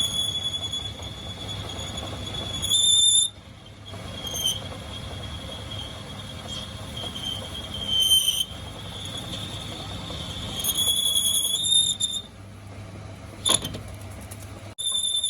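A tool cutting metal squeals steadily at a high pitch, breaking off briefly a few times, with a short sharp squeak near the end.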